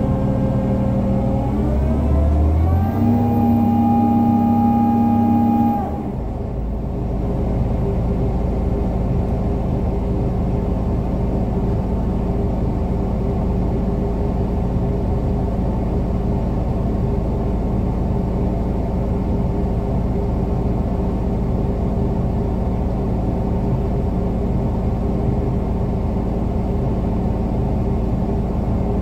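Crane engine heard from inside the cab: it revs up about two seconds in, holds the higher speed for a few seconds, then drops back about six seconds in and runs steadily.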